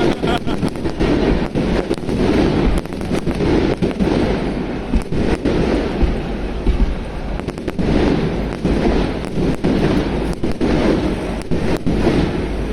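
Fireworks bursting in quick, irregular succession: many sharp bangs over a continuous rumble of overlapping explosions.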